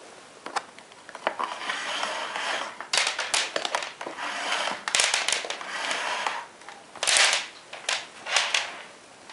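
Handling noise from a canister vacuum cleaner and its hose being moved about on a wooden floor: irregular bursts of rustling and scraping with sharp clicks. The vacuum's motor is not running.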